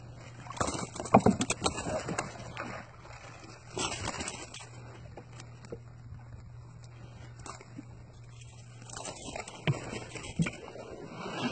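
Gill net being hauled in by hand over the side of a small boat: water splashing and irregular knocks as net and fish come aboard.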